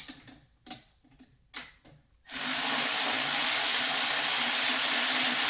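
Hand-held power tool running steadily for several seconds to loosen a stuck engine bolt, starting a couple of seconds in, after a few light clicks and knocks of tools being handled.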